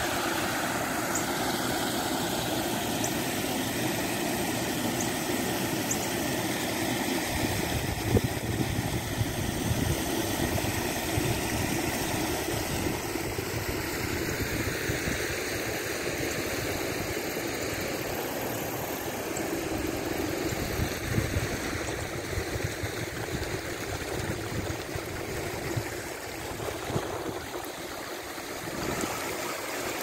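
Creek water rushing steadily over a small rock-ledge waterfall and shallow riffles across flat bedrock.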